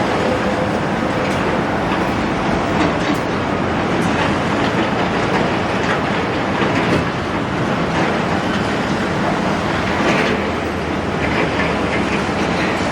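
Large Doosan excavator at work on demolition: its diesel engine runs steadily under a continuous clatter of knocks and scraping.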